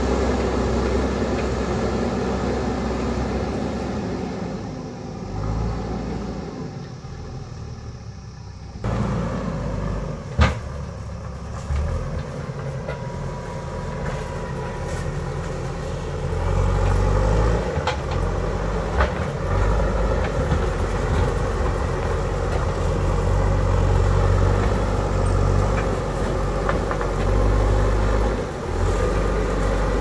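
JCB backhoe loader's diesel engine running as the machine moves along the track, fading for a few seconds, then louder and working harder in spells as it pushes loose earth and stones with its front bucket. One sharp knock about ten seconds in.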